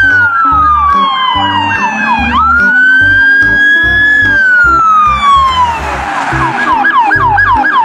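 Electronic police siren of a toy police car: a falling wail with a fast warble, then a long rising-and-falling wail, switching about six seconds in to a fast repeating yelp. Background music with a steady beat underneath.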